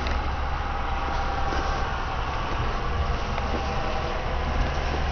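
Steady low rumble and hum of an idling engine, with a faint steady whine above it.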